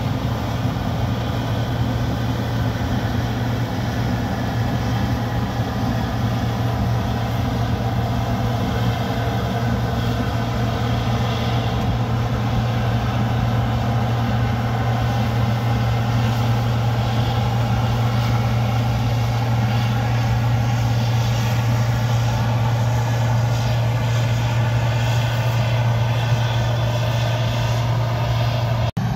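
Heavy diesel engine running steadily with a constant low hum, the steady drone of farm harvest machinery.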